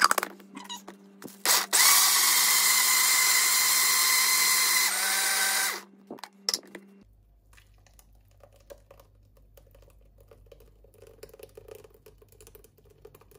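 Countertop blender puréeing chopped pineapple: a few clicks as the lid goes on, then the motor runs steadily for about four seconds, shifts its note about five seconds in and stops a moment later.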